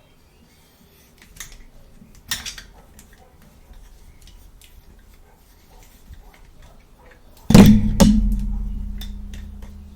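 Small objects handled with light clicks and a brief clatter, then a sudden loud knock about seven and a half seconds in that rings on in a low tone and fades slowly.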